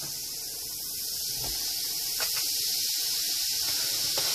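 Steady fizzing hiss of baking soda and vinegar reacting and foaming out of a clay model volcano, with a couple of faint ticks.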